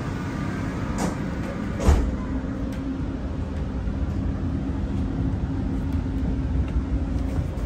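Doha Metro train interior: a steady low rumble of the train running as it sets off after its doors close, with two sharp knocks about one and two seconds in, the second the louder.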